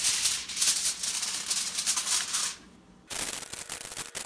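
Aluminium foil crinkling as it is handled: a long rustle of about two and a half seconds, then, after a short pause, a second spell of denser crackling as the foil is pressed over a loaf pan.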